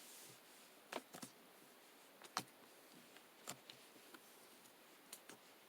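Faint room tone with a few small, irregular clicks and taps, the loudest about two and a half seconds in.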